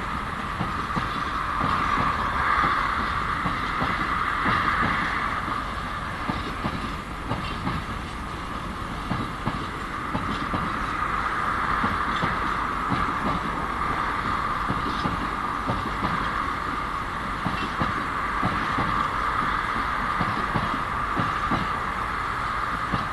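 Freight train wagons rolling slowly as the ST44 diesel locomotive at the head starts the train, with faint wheel clicks over a steady rumble and a continuous higher-pitched hum.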